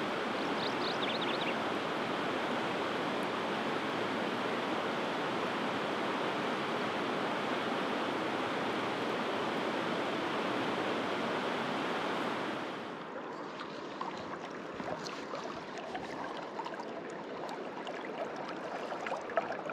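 Creek water rushing, a steady even hiss of flowing current. About twelve and a half seconds in it drops suddenly to a quieter, duller flow, with a few light clicks.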